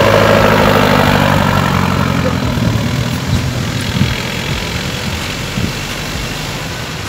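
Open-top Jeep's engine running as it pulls away and drives off, its sound fading steadily as it moves away.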